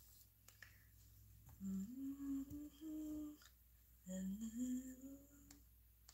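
A woman humming two short phrases of a tune with her mouth closed, each about two seconds long and stepping upward in pitch, the first starting about a second and a half in and the second about four seconds in.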